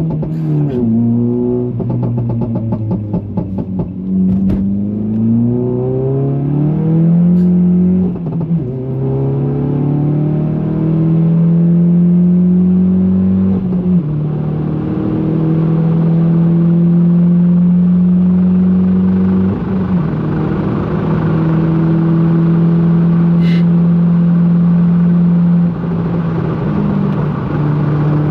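Stage 2-tuned Volkswagen Polo GTI's turbocharged four-cylinder engine pulling under full throttle through the gears. Its pitch climbs and drops back at each upshift, then holds steady at high revs for several seconds at a time.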